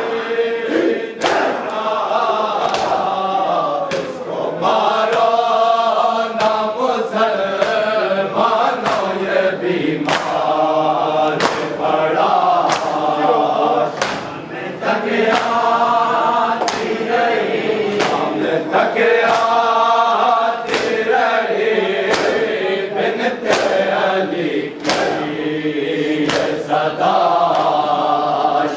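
A group of mourners chanting a noha in unison, with sharp, regular slaps of hands striking chests (matam) roughly once a second, keeping time with the chant.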